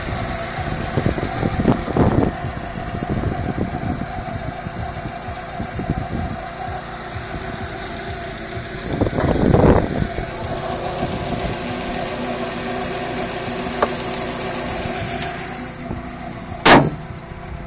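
Volkswagen Polo engine idling steadily with the bonnet open, with a steady high whine above it. Near the end a single sharp slam, the bonnet being shut.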